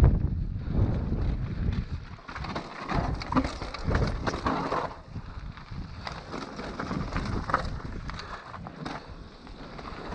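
Mountain bike ridden fast down a trail: tyres running over the ground and the bike clattering with short knocks over bumps, with wind buffeting the microphone, heaviest in the first couple of seconds.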